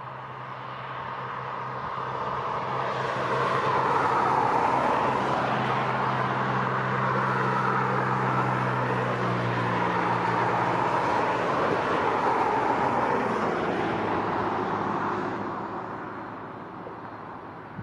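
Airbus A330-200 jet engines running at low power as the airliner rolls past on the runway: a steady rushing whine that swells, holds for about ten seconds and fades, with a low hum that drops in pitch about halfway through as it goes by.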